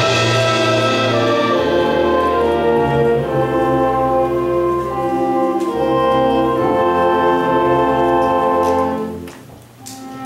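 School concert band of flutes, clarinets, brass and timpani playing held chords. About nine seconds in the music dies away briefly, then starts again.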